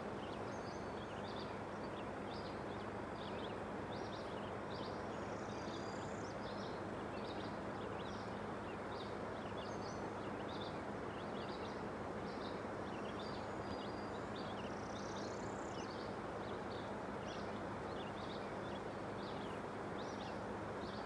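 Steady rushing of a shallow stream, with small birds chirping again and again over it.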